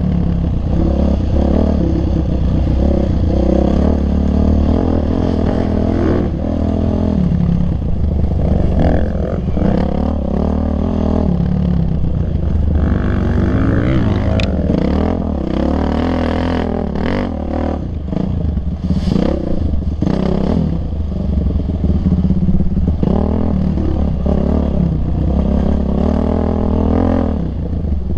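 Yamaha YZ450F dirt bike's single-cylinder four-stroke engine revving up and down under way, with frequent clattering knocks from the bike.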